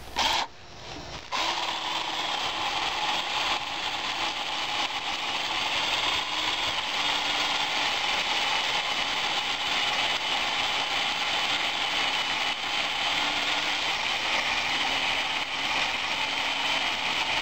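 Ryobi P545 18-volt lithium-battery chainsaw with a 10-inch bar cutting through a small log. Its electric motor and chain run steadily in the wood, starting about a second in after a brief quieter moment.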